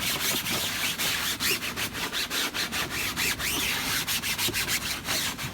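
Wet sponge scrubbing the mesh screen of a rotary drum filter in quick, repeated rubbing strokes.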